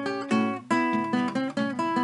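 Guitar playing a blues accompaniment, strumming chords in a steady rhythm with a fresh chord attack about every half second.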